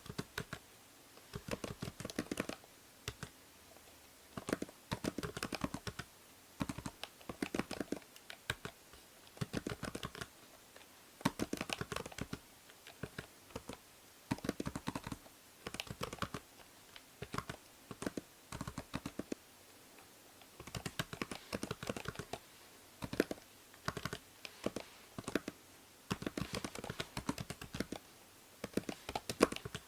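Typing on a computer keyboard: quick runs of key clicks in bursts of a second or two, broken by short pauses, over a faint steady hiss from the binaural microphone.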